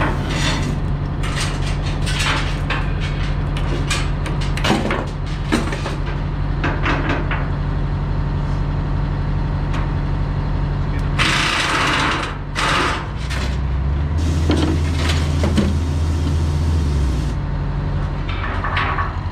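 Heavy diesel engine idling steadily, with scattered metal clanks and taps in the first few seconds, a loud hiss of released air about eleven seconds in, and a deeper engine note that comes in for a few seconds after it.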